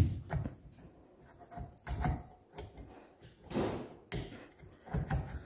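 Metal engine parts being handled while a motorcycle piston is fitted during engine reassembly: a sharp knock at the start, then a few scattered clicks and knocks, with a brief scrape about three and a half seconds in.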